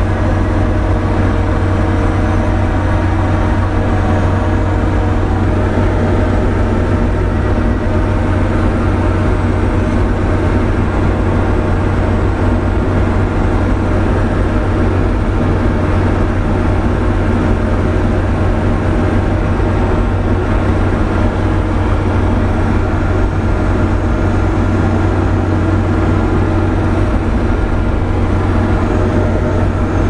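New Holland C185 compact track loader's diesel engine running steadily, heard inside the cab, as it drives a converted three-point snowblower on standard-flow hydraulics through wet snow. A deep, even hum with several steady tones over it, unchanging throughout.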